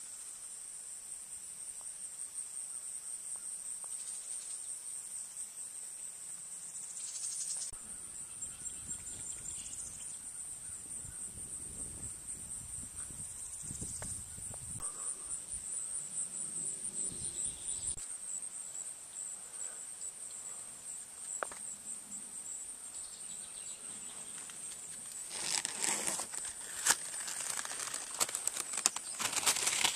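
Steady high-pitched trilling chorus of insects, with a low rumble for about ten seconds in the middle. Near the end comes a dense crackling rustle of leaves.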